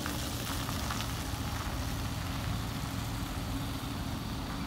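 Pickup truck's engine running as it drives slowly over a wet, muddy dirt track, with a steady hiss over it.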